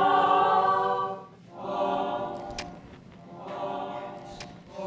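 A choir singing held chords without accompaniment, three sustained swells in a row with short breaks between them.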